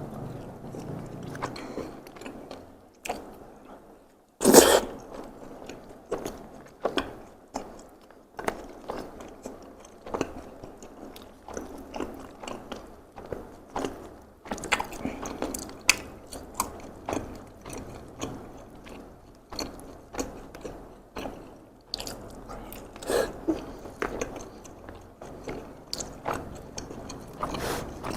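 Close-miked chewing of takoyaki: wet mouth clicks and smacks coming irregularly throughout, with one loud sharp knock about four and a half seconds in.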